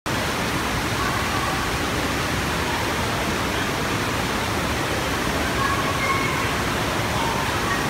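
Steady rushing of water pumped over the ramp of an indoor standing-wave surf machine.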